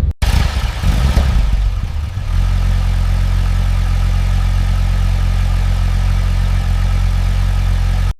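Car engine running, uneven for the first couple of seconds, then settling into a steady idle.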